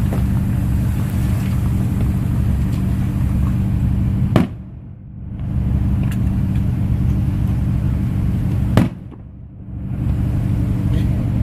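Steady low rumble and hum of a car, heard from inside the cabin. About every four seconds it is broken by a sharp crack, after which the rumble briefly drops away and swells back.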